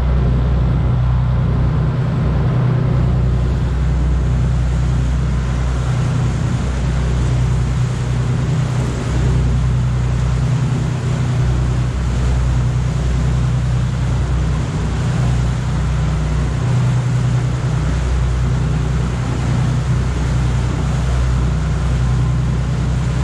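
Fishing boat's engine running steadily: a constant low drone with an even hiss over it.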